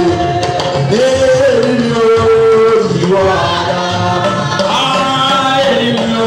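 Church worship music: singing over instrumental accompaniment, with long held notes that change pitch every second or so.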